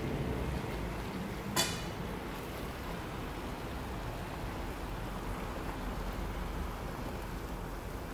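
Wooden spoon stirring mixed vegetables in a frying pan over a steady hiss of cooking, with a single sharp clink about a second and a half in.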